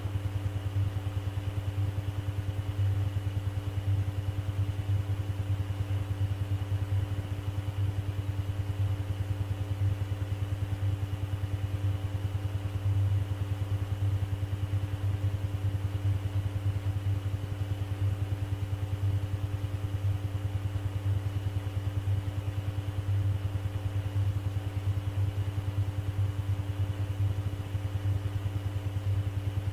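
Steady low electrical hum with fainter higher tones above it, the background of an air traffic control audio recording between radio transmissions.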